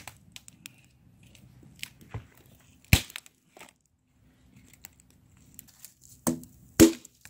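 Dry sticks and firewood crunching and cracking while being stepped on and handled, with a few loud sharp cracks of wood: one about three seconds in and two close together near the end.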